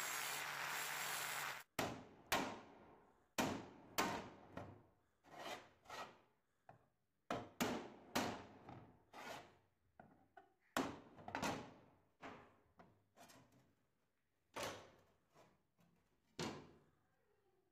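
Angle grinder's abrasive disc grinding the rusted metal lid of an antique bed warmer, cutting off about two seconds in. After that comes a long run of separate sharp clicks and knocks of steel on steel as pliers grip and work old pins out of the lid.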